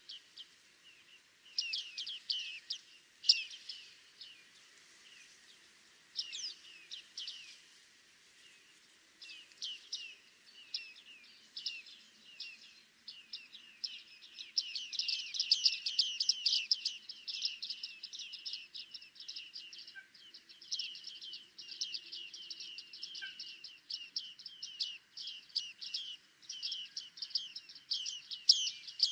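Several bearded tits calling with short, high calls. The calls are scattered at first, then become a rapid, dense run of calls from about halfway through.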